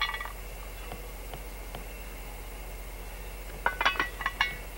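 A quick run of sharp metallic clinks about three and a half to four and a half seconds in, with a single clink at the start: metal knocking against a cast-iron Dutch oven lid as hot charcoal briquets are picked off it.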